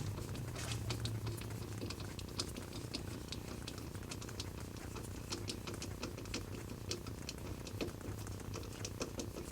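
Scattered small clicks and taps of hands fitting a bike-lock mounting bracket and its screws onto a bicycle frame tube, over a steady low hum.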